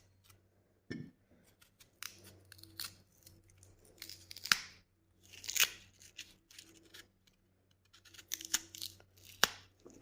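Raw turnip being hollowed out by hand: irregular crisp scraping and cutting strokes into the firm flesh, with a few sharper snaps.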